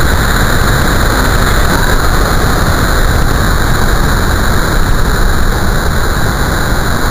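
Heavy storm surf breaking and washing through whitewater, a loud, steady roar of noise.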